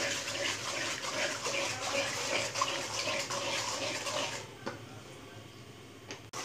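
Wooden spatula stirring semolina roasting in ghee in a pan, scraping and swishing against the pan in quick strokes. The stirring stops about four and a half seconds in, with one light knock soon after.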